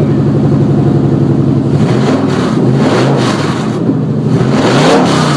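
Nissan Titan's 5.6-litre V8 running loud on open Stillen headers with no exhaust fitted, idling and then revved several times from about two seconds in, the pitch climbing and falling with each blip of the throttle.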